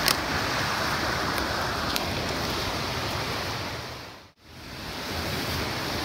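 Steady rush of a fast mountain creek tumbling over rocks, with a few light clicks in the first two seconds. About four seconds in, the water sound fades out to silence and fades straight back up.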